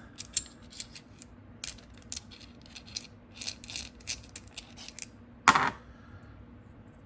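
Rapid metallic clicks and clinks from a Pittsburgh 1/2-inch thumbwheel ratchet being handled, its mechanism partly separated after being shot through with two nails, with one louder clank about five and a half seconds in.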